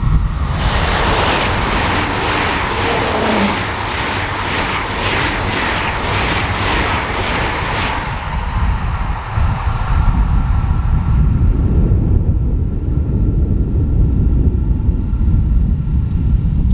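A train passing at speed: a loud rush of noise with a regular beat of wheelsets clattering over the rail, about two a second, that dies away about eight seconds in. Wind rumbles on the microphone.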